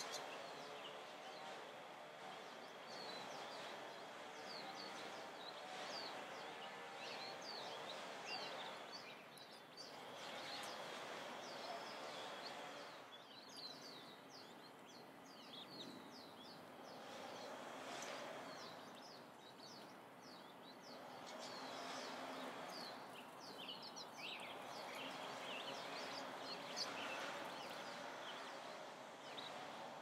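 Wild turkey poults peeping: many short, high-pitched chirps scattered throughout, over a steady outdoor background hiss.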